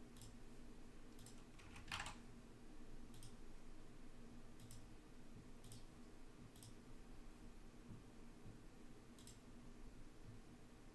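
Faint, scattered clicks of a computer keyboard and mouse, about nine at irregular intervals, over a low steady hum.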